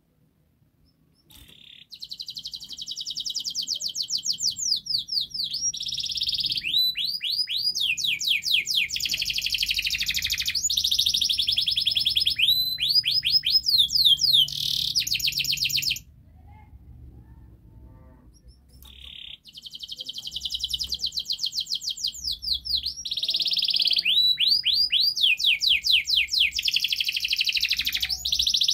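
Domestic canary singing a long, full song of fast high-pitched trills and rolling phrases. The song starts about a second and a half in, pauses for about three seconds halfway through, then starts again.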